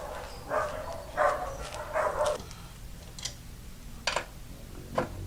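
Dogs barking: three barks in the first couple of seconds. Then three sharp clicks about a second apart.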